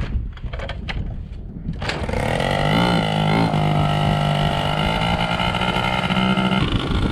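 Honda Spree scooter's small two-stroke engine comes in suddenly about two seconds in and runs with a steady buzz, its pitch wavering briefly a second later and dropping near the end. Before it, rumbling wind noise and a few clicks.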